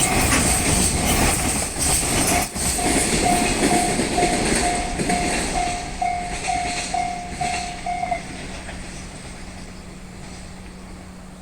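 A train passes over a railway level crossing with rail noise, while the crossing's warning bell rings in even pulses about twice a second. The train noise fades and the bell cuts off about eight seconds in as the crossing clears.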